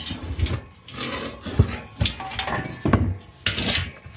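Metal tools and parts clanking and scraping in uneven knocks, about six of them, during work on a dirt bike.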